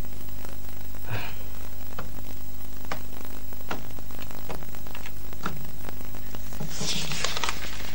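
Steady electrical mains hum and hiss from an old soundtrack, with scattered faint clicks and a brief burst of noise near the end.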